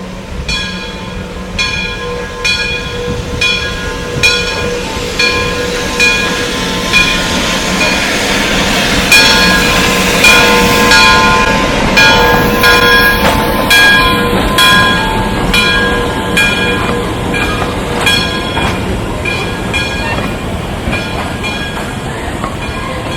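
Steam locomotive's bell ringing steadily at about two strokes a second, over the rumble of the moving train.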